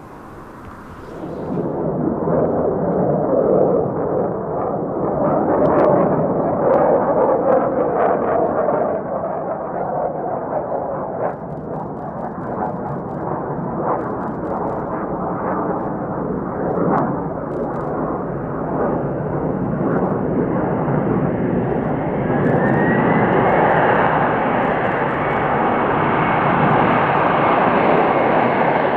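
Jet airliner's turbofan engines during a landing on a snowy runway, a steady roar with crackle. About 22 seconds in it grows louder and a rising whine comes in as the engines spool up, blowing snow off the runway.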